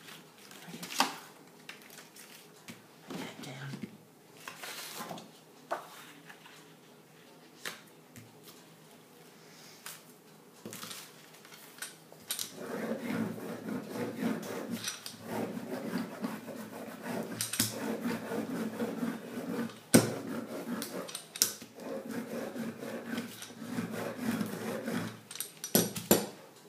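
Paper and plastic stencils rustling and tapping as they are handled. About halfway through, a rubber brayer is rolled back and forth over a sheet of paper laid on an inked printing plate, a repeated pulsing rubbing that runs for over ten seconds, and near the end there are a few knocks as the brayer is set down.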